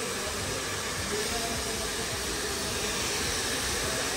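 Handheld hair dryer running steadily during a blow-dry, a continuous even hiss, with faint voices underneath.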